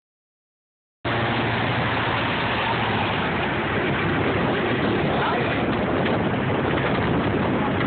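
Airboat engine and propeller running steadily, starting about a second in.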